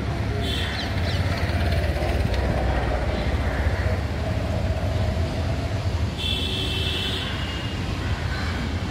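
Steady low rumble of outdoor urban background noise, with brief high-pitched sounds about half a second in and again about six seconds in.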